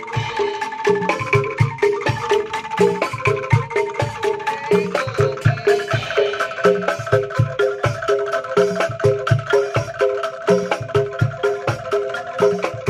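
Background music with a steady beat of short, repeated struck notes over a low pulse.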